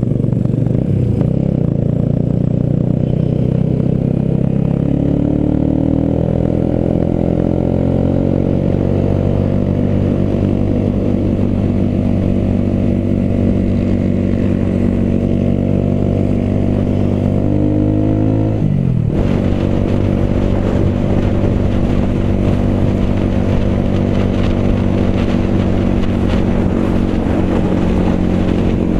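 Motorcycle engine running at road speed, its note slowly rising for much of the time, then dipping sharply and recovering about two-thirds of the way through before holding steady.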